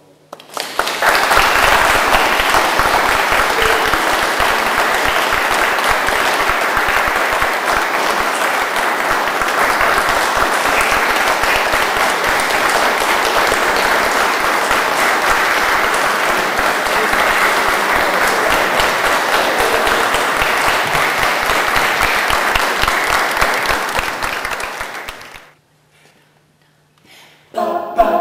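Audience applauding, a long steady round of clapping that dies away about 25 seconds in. After a short pause a small vocal ensemble starts singing a cappella right at the end.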